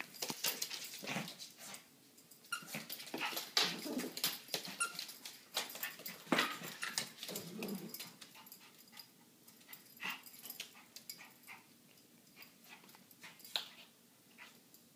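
American Eskimo puppy playing with a squeaky gator toy on a hardwood floor: irregular short squeaks and rustling of the toy mixed with claws clicking and scrabbling on the boards. The activity is busiest in the first half and thins to occasional squeaks and clicks later.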